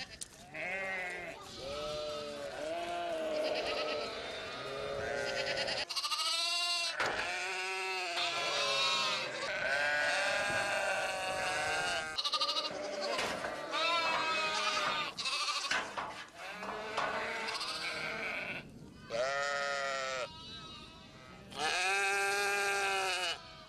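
A mixed flock of sheep and goats bleating, many calls overlapping one after another, with a loud, long bleat near the end.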